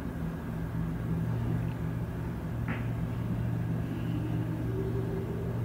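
A steady low hum with a faint rumble underneath.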